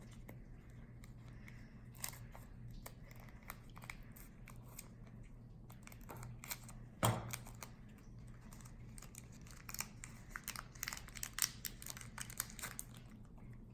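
Pokémon booster pack's foil wrapper being torn open and crinkled: faint scattered crackles, a louder snap about seven seconds in and a busy run of crinkling near the end.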